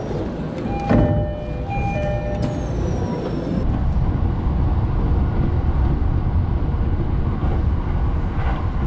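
Local electric commuter train: a few short beeping tones and a click in the first three seconds, then the steady low rumble of the train running, heard from inside the passenger car.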